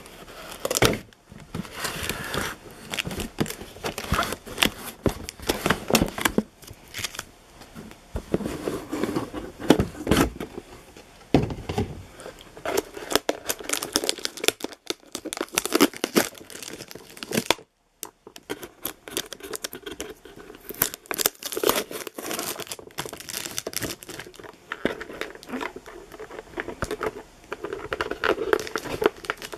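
Cardboard box and plastic packaging being handled and opened: irregular crinkling of plastic bags with tearing and rustling of cardboard, stopping briefly a little past halfway.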